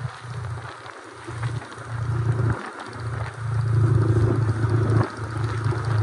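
Motorcycle riding at speed on a wet road: engine and road noise with wind rumbling on the microphone. It gets louder about halfway through.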